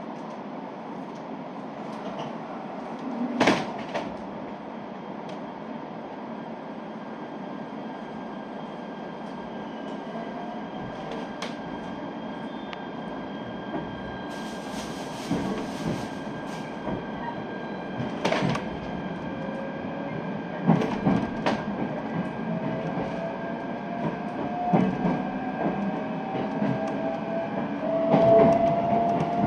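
Inside a local electric train pulling away from a station and accelerating. The running noise builds, and the motors' whine rises slowly in pitch through the second half. There is a sharp knock a few seconds in, and more knocks later as the wheels cross rail joints and points.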